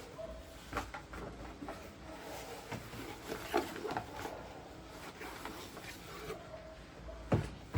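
Packaging being handled during an unboxing: irregular rustling and small clicks and taps, with a sharper knock near the end.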